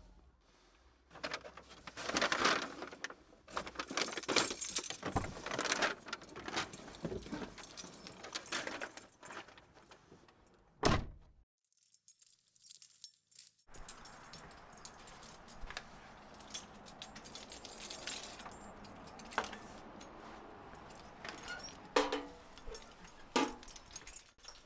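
A bunch of keys jangling, along with handling clicks and rustles. One sharp knock about eleven seconds in is followed by a short near silence, and the keys jangle again near the end as they are brought to a door.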